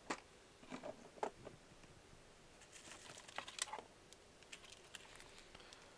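Faint scattered clicks and light taps, with a quick cluster of them about three seconds in.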